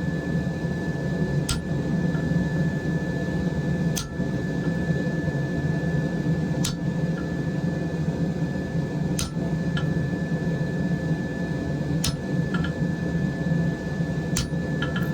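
Hammer blows on a hot chisel cutting a slot into a hot iron knife billet: six sharp strikes, about one every two and a half seconds. Under them, the steady rushing hum of the forge running.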